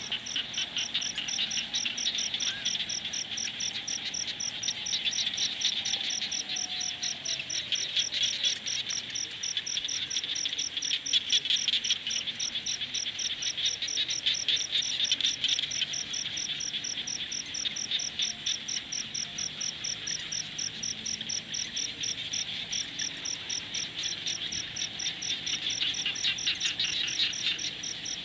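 Steady night chorus of crickets: one high chirp repeating in a rapid, even pulse over a denser trilling from many insects underneath.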